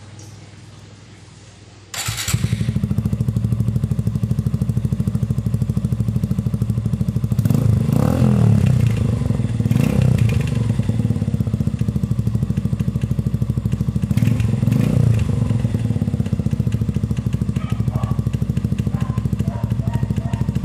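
Suzuki Gixxer 155's single-cylinder engine running through an Akrapovic M1-style slip-on exhaust with the traditional dB killer fitted. The exhaust comes in loud about two seconds in, settles to a steady idle, and is blipped up and back down three times.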